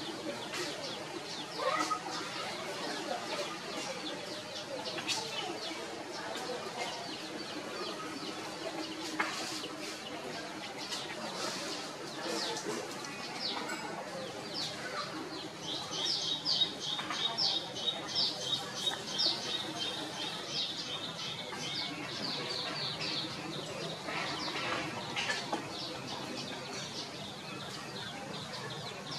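Chicks and sparrows chirping: many short, high chirps throughout, with a fast, dense run of chirps over a steady high note from about halfway to two-thirds through.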